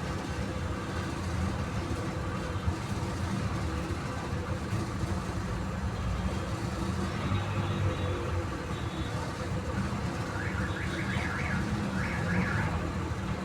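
Street traffic noise: a steady low rumble of running car engines. About ten seconds in comes a run of short, repeated high chirps.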